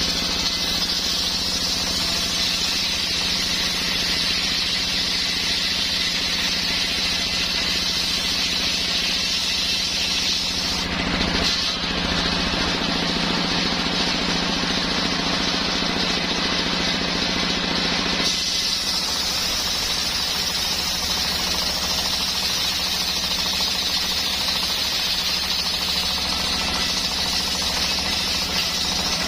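Homemade engine-driven circular saw running steadily while sawing coconut wood, with a rapid throbbing pulse. The sound changes character about eleven seconds in and again around eighteen seconds, as the low hum drops back.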